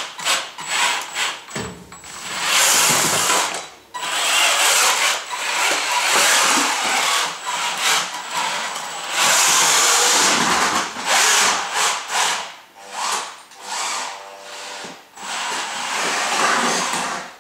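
Combat robot's electric drill-motor drive whirring in repeated bursts, each from under a second to a few seconds long, stopping and starting as the robot drives about.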